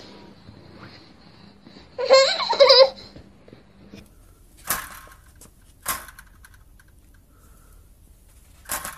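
A baby squealing and laughing for about a second, from about two seconds in. Later come three short, sharp knocks or taps, the last near the end.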